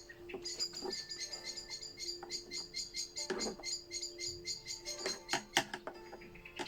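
Blackbirds calling over and over, a fast even run of high chirps about five a second, the noise of adult birds with young just out of the nest. A few sharp clicks and knocks sound near the middle and towards the end.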